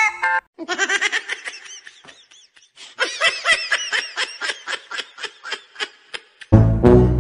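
Two bouts of rapid, high-pitched laughter, each trailing off. Loud music with a heavy bass beat cuts in near the end.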